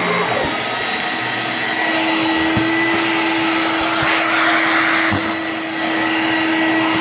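Electrolux Discovery 2 upright vacuum running with the hose in use: a steady motor hum over rushing air, sucking up debris. About four seconds in, the airflow grows louder and hissier for about a second.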